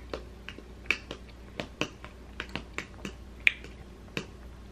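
Eating sounds: about a dozen irregular, sharp clicks, the sharpest about three and a half seconds in.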